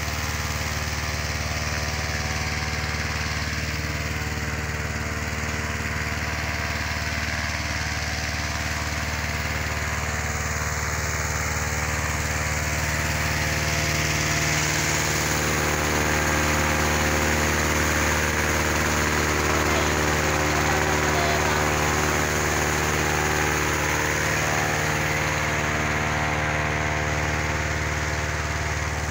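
Petrol-engined inflator fan running steadily, blowing cold air into a hot-air balloon envelope during cold inflation; it grows slightly louder about halfway through.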